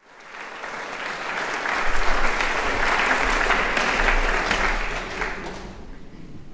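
Audience applauding, swelling up and then dying away near the end.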